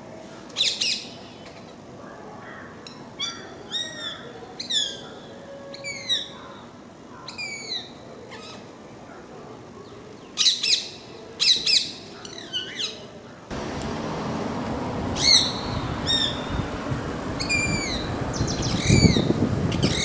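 Rose-ringed parakeets calling: repeated shrill squawks that slide down in pitch, singly and in quick runs. About two-thirds of the way through, a louder steady outdoor hiss comes in behind the calls.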